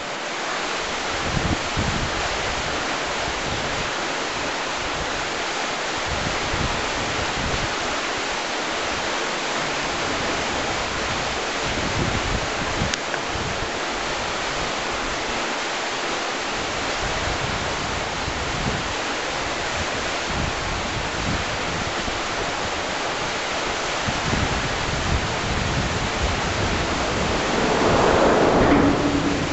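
Steady rush of a flowing river, with wind buffeting the microphone in irregular low rumbles. The rushing swells louder for a moment near the end.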